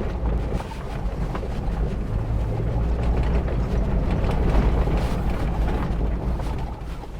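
Inside an SUV's cabin driving over very rough ground: a steady low rumble from the vehicle and tyres, with scattered small knocks and rattles that come from the folding rear seat backrest. The tailgate, its latch striker freshly replaced, gives no rattle; the rumble fades near the end.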